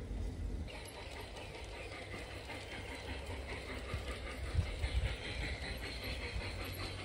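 LGB G-scale model trains running on outdoor garden track, the wheels clicking over the rail joints under a steady rumble. A hiss joins about a second in, with a few low knocks near the middle.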